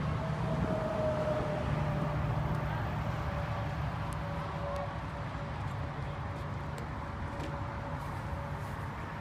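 A motor vehicle's engine running steadily with a low rumble and a faint steady hum, slowly growing fainter.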